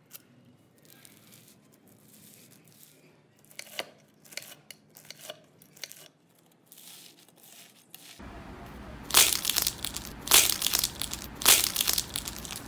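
Faint crackles as a block of crunchy bead slime is handled and sliced with a knife. About eight seconds in, louder crinkling and tearing as a strawberry-print paper squishy filled with slime is squeezed, with three loud crinkles about a second apart.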